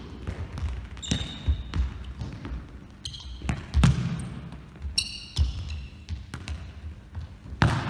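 Futsal ball being passed and kicked on a sports hall floor: a series of sharp thuds from kicks and bounces, the loudest about four seconds in, with short high squeaks of shoes on the floor about one, three and five seconds in.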